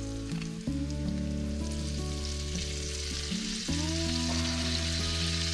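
Butter sauce with shallots, garlic and dill sizzling in a hot pan on the stove, a steady hiss, with background music of held notes underneath.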